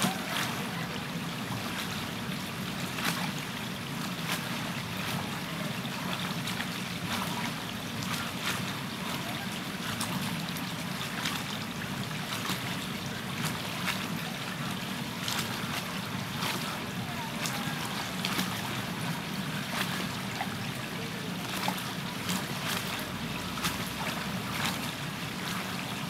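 Steady outdoor background noise beside open water: a low even rumble with many short scattered clicks.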